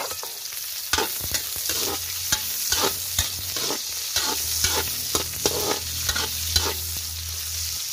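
Sliced red onions sizzling in hot oil in a wok as they are sautéed, a steady frying hiss dotted with irregular crackles.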